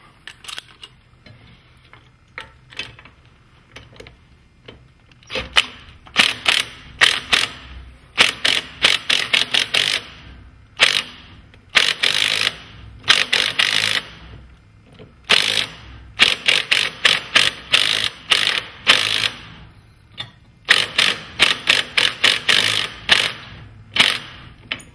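Hand ratchet wrench clicking as a socket drives a bolt into the garage door hardware bracket on the wooden jamb. The clicks come in quick runs of a second or two with short pauses between, starting about five seconds in.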